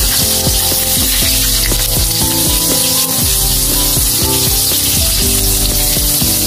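Pork mesentery (chicharon bulaklak) sizzling steadily as it deep-fries in hot oil in a wok, with pieces being turned in the oil with a fork. Background music with changing notes plays under the sizzle.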